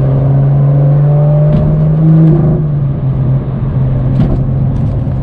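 BMW M2's N55 turbocharged inline-six with a catless downpipe, heard from inside the cabin, pulling with its pitch rising, then dropping at a gear change about two and a half seconds in. A few sharp exhaust pops come through around the shift.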